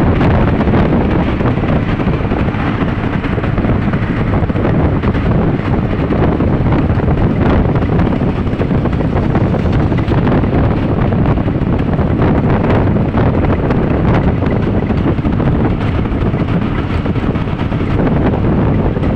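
Steady, loud wind rushing over a phone microphone on a vehicle moving at speed, mixed with the vehicle's road noise.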